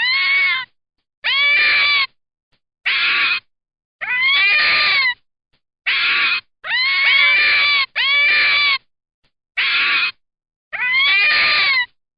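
An animal calling over and over: about ten separate high-pitched cries, each under a second long, rising and then falling in pitch.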